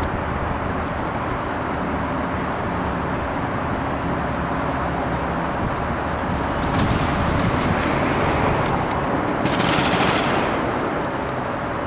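Steady outdoor traffic noise that swells as a vehicle passes about seven to ten seconds in. A few faint sharp cracks of distant gunfire from the police shooting range come through it.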